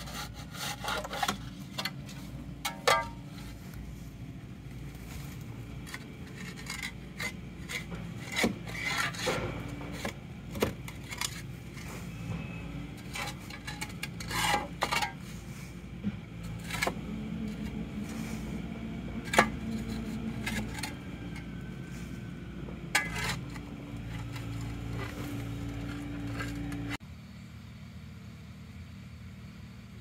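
A steel bar and a shovel scraping and prying caked mud out of a compact track loader's rubber track and undercarriage: irregular scrapes and sharp clicks of metal on metal and grit, over a steady low hum. About three seconds before the end the scraping stops abruptly, leaving only the quieter hum.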